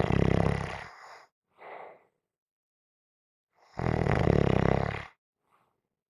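A person snoring: two loud, fluttering snores about four seconds apart, each followed by a short, softer breath.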